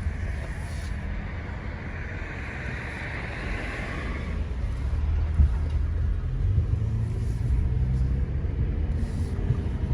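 Honda Accord being driven: steady engine and road rumble that grows louder about halfway through as the car picks up speed.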